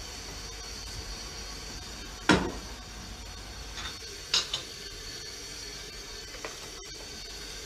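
Kitchenware on a hob being moved about with a foot: one sharp knock about two seconds in, then a few lighter clinks and knocks. A steady hiss lies underneath.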